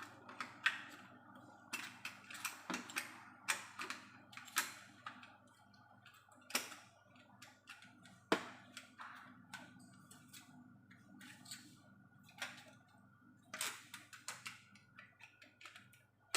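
Scattered clicks and light knocks of plastic parts as a replacement washing machine door handle is pushed and fitted into place, several close together and then a quieter stretch past the middle.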